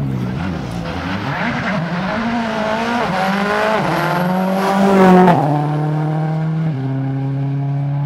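Ford Focus WRC rally car's turbocharged four-cylinder engine at full throttle, approaching and passing close by. Its note climbs in steps through the gears and is loudest about five seconds in. The pitch then drops sharply as it goes past, and it runs on at a lower, steadier note.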